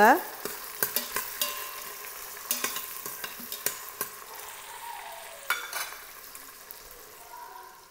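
Sliced red onions sizzling in hot oil and ghee in an Instant Pot's stainless steel inner pot, stirred with a spatula that scrapes and clicks against the pot now and then.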